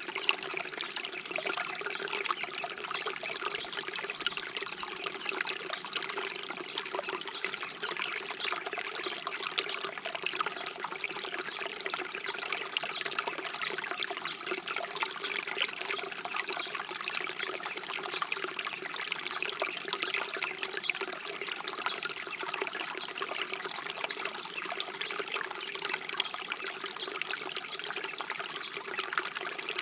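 Brook babbling steadily, a continuous close splashing and trickling of flowing water.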